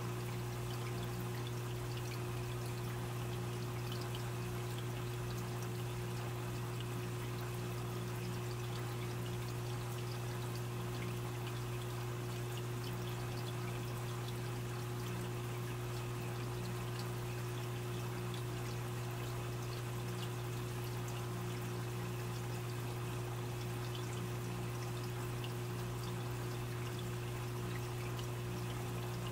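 Aquarium filter running: a steady trickle of water with a constant low hum underneath.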